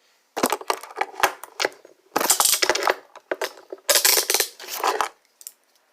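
Peerless chain-link steel handcuffs being handled: the cuffs and their chain rattle and click in three bursts of metallic jangling.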